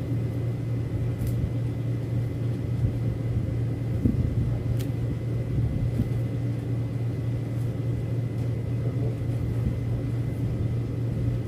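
A steady low hum runs unchanged throughout, with a few faint ticks from plastic strands and thread being handled.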